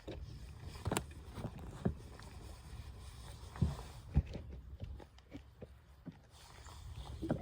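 Scattered knocks and clunks in a small fishing boat, a handful of separate thuds over a low rumble.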